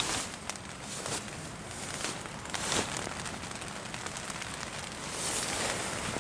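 Storm rain and wind on the fabric of a Primus Shelter dome tent: a steady crackly patter with many sharp taps, swelling in gusts about every two to three seconds.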